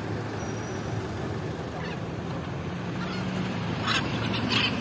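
Steady low rumble of city traffic, with two short, sharp sounds about four seconds in that stand out as the loudest moments.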